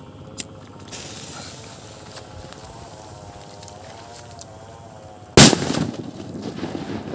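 Homemade paper triangle firecracker: its lit fuse hisses briefly about a second in, then the firecracker goes off with one very loud bang about five seconds in, followed by a trailing echo.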